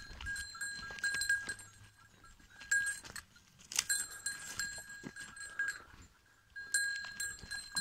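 Two billy goats fighting, with a bell-like ringing that comes and goes as they move and a few sharp knocks, the clearest about four seconds in.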